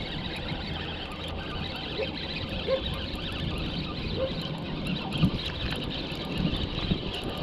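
A spinning reel being cranked to bring in a hooked fish, with faint fine ticking over steady wind and water noise. There are a few short pitched calls about two and four seconds in, and a dull knock a little past five seconds.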